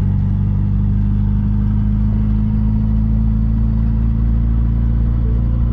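Classic MG Midget's four-cylinder engine running at a steady, even speed while the open-top car drives along, heard from the open cockpit.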